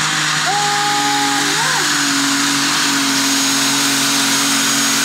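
Pulling tractor's engine running loud and steady, with a thin high whine over a hiss.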